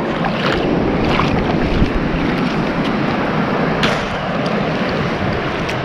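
Wind buffeting the microphone over breaking surf: a steady rushing noise, with a few short clicks.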